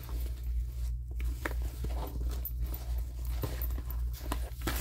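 Rustling, crinkling and light taps as a canvas tote bag and its paper insert are handled and turned over, over a steady low hum.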